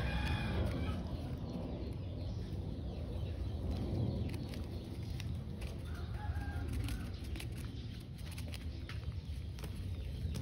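Chickens clucking in the background, a few short calls near the start and again about six seconds in, over a steady low rumble with scattered small clicks.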